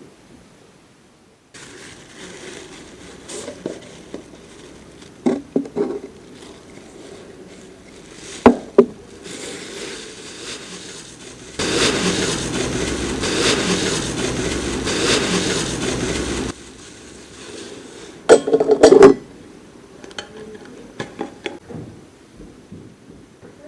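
Scattered sharp knocks and clinking clatters in a room. A steady rustling noise runs through the middle for about five seconds and stops abruptly, and the loudest cluster of clattering knocks comes near the end.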